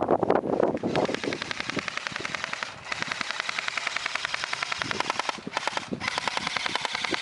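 Airsoft electric gun firing full-auto in long bursts: a fast, even rattle of shots with short pauses between strings. Before it, about a second of rustling movement.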